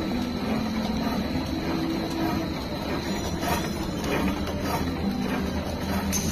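Automatic AB epoxy putty extruding and pillow-packing machine running at speed: a steady mechanical whirring and clatter with a thin high whine and a few faint ticks.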